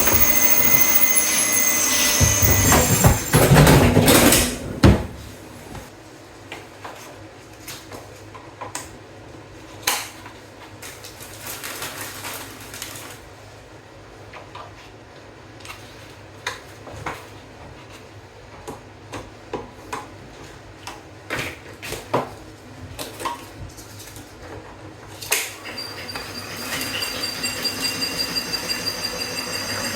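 Scattered knocks and clinks of cabinet parts and hardware being handled and fitted during cabinet assembly, after a loud steady sound in the first five seconds. Near the end, a fast, regular rattling begins.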